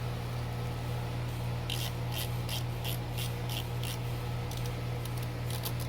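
A screwdriver working screws out of a plastic headlight assembly: a run of short scratchy strokes, about two a second, starting a couple of seconds in, over a steady low hum.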